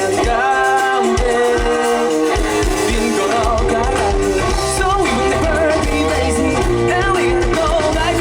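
Live rock band performing a song: singing over a full band, with a steady kick-drum beat underneath.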